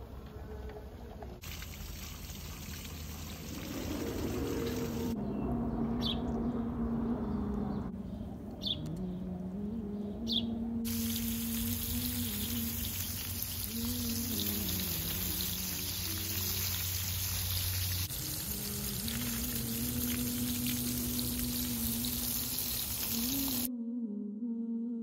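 Water spraying from a garden hose and splashing into leafy shrubs, a steady hiss that cuts off about a second before the end. A slow wordless vocal nasheed hums a melody underneath throughout.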